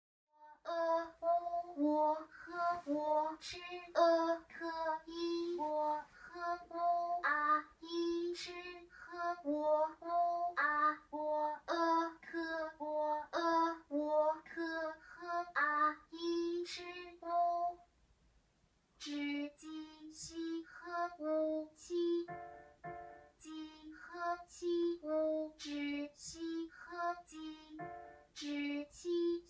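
Auditory brain-computer interface speller stimuli: short, voice-like pitched syllable sounds played from loudspeakers in quick succession, several a second, with a pause of about a second a little past halfway.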